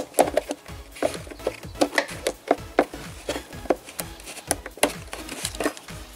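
Irregular clicks and knocks of hands working coolant hoses and plastic fittings in an engine bay, over background music.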